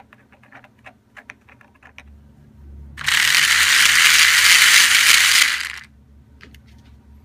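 Small DC motor driving a 3D-printed plastic worm gear: it starts suddenly about three seconds in, runs with a loud, noisy rattling for about three seconds, then stops. Light clicks of handling come before it.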